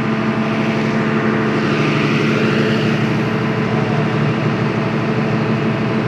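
Fire brigade aerial-platform truck's engine running steadily, an even hum with a constant pitch, keeping the raised hydraulic boom powered.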